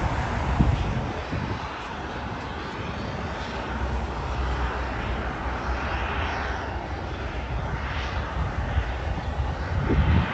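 Jet engines of a narrow-body airliner rolling along the runway, a steady rumbling roar with a few swelling whooshes.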